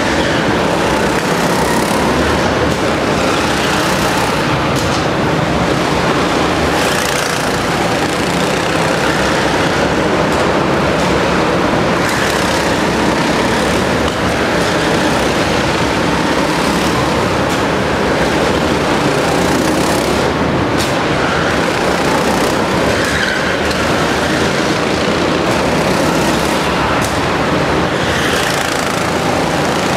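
Go-kart engine running steadily and loudly as the kart is driven at speed round an indoor track.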